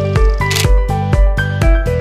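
Upbeat background music with a steady low thudding beat about twice a second under short plucked notes. A brief swish comes about half a second in.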